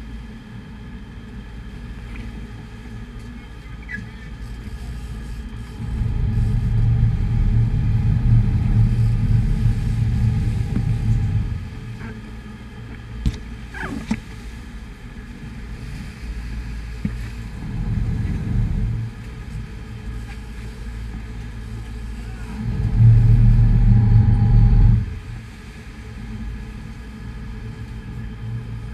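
Steady low rumble of the sportfishing boat under way, from its engines, the churning wake and wind on the camera. It swells much louder twice: for about five seconds from six seconds in, and for about two seconds later on.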